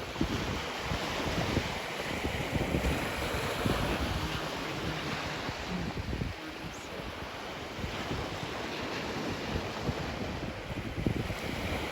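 Gulf of Mexico surf washing onto the beach, with wind buffeting the microphone in uneven gusts.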